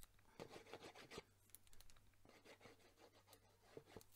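Faint rustling and scraping of cardstock being handled, with a few light ticks.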